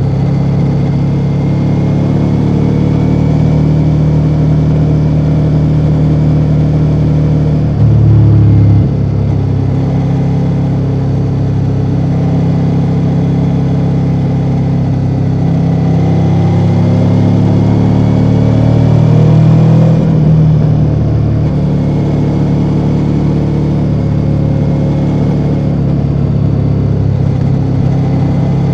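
2024 Ducati Multistrada V4 Rally's V4 engine on its stock exhaust, running steadily under way. There is a brief louder surge about eight seconds in, and the note climbs slowly and then drops about two-thirds of the way through.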